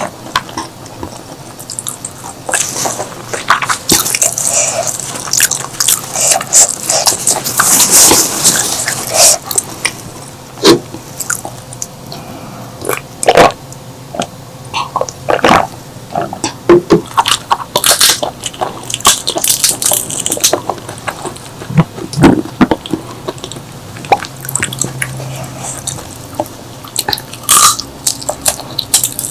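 Close-miked eating sounds: chewing and biting with irregular sharp clicks and wet crackles from the mouth.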